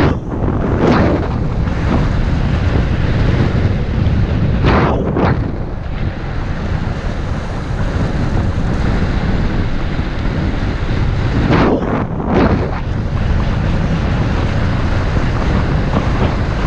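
Rushing wind buffeting the microphone of a camera on a moving road bike: a loud steady roar with brief whooshes a few times.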